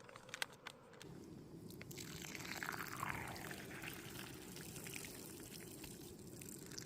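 Pot of water boiling on a camp stove with fresh pasta in it, a steady faint bubbling that starts suddenly about a second in.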